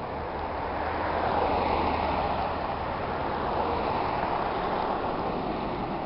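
Cars driving past on a multi-lane road: a steady rush of tyre and engine noise that swells as vehicles go by close, loudest about two seconds in and again around four seconds.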